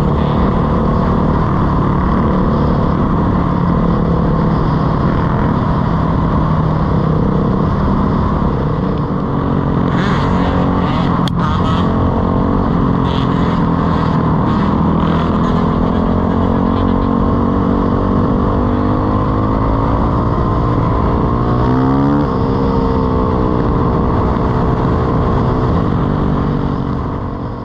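Dirt bike engine running steadily while riding, heard from on the bike with wind noise on the microphone. Some sharp clicks come in the middle, and about two-thirds of the way through the engine revs up in a quick rising glide.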